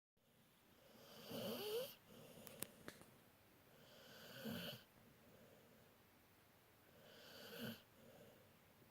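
Pit bull snoring: three snores about three seconds apart, each swelling and then cutting off, with two short clicks about a second after the first.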